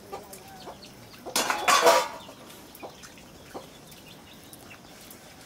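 Metal pots and bowls being hand-washed in water, with scattered light clinks and knocks. About a second and a half in comes one loud, harsh sound lasting under a second.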